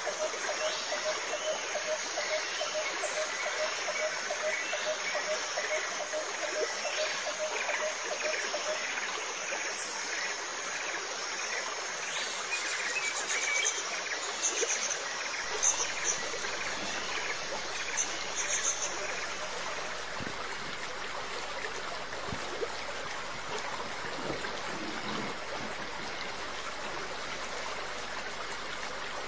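Steady running, trickling water in a home aquarium, the kind made by a filter's water flow.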